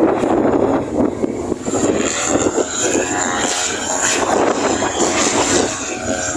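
Small propeller aircraft engine running steadily, mixed with rough, gusting noise.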